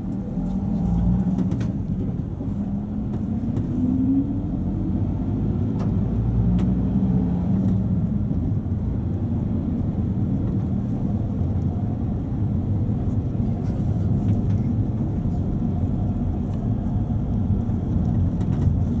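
Cabin noise of a Luidor-223206 minibus (Mercedes-Benz Sprinter Classic) under way: steady engine and road noise, with the engine note rising between about two and four seconds in and again around seven seconds in.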